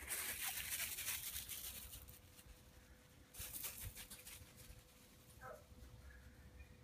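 Crunching footsteps on pea gravel in two stretches, the first lasting about a second and a half and the second starting around three and a half seconds in. About five and a half seconds in, a small dog gives one short, falling whimper.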